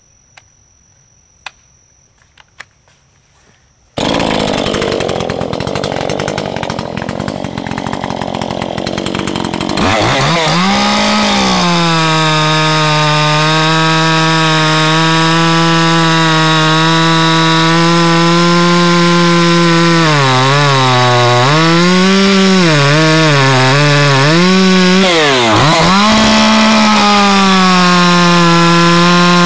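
Gasoline two-stroke Dolmar chainsaw starting about four seconds in, then revving up to a high steady pitch about ten seconds in as it cuts into a log. Its engine speed dips and recovers several times under the load of the cut in the second half.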